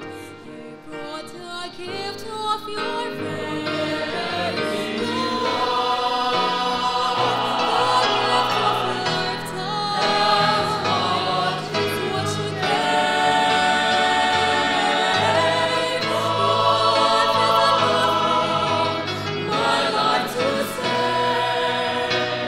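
Mixed choir of men's and women's voices singing a Christian choral song, soft at first and growing fuller and louder within the first few seconds.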